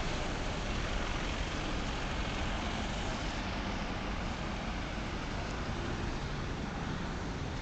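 A First Bradford double-decker bus driving past and pulling away, its engine rumble blending with steady road traffic noise and easing slightly as it moves off.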